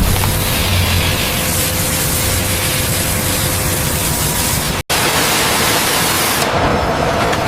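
Steady loud rushing noise with a faint hum through it, broken by a split-second dropout to silence about five seconds in.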